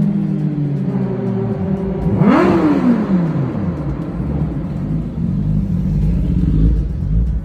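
Kawasaki Ninja ZX-10R inline-four engine: its note slides slowly down, then about two seconds in it rises sharply and drops away again within a second. A lower, uneven rumble follows.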